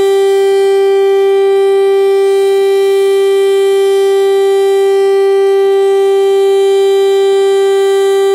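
Federal Signal STL-10A electromechanical outdoor warning siren sounding its full-alert signal: a loud, steady tone held at one unchanging pitch.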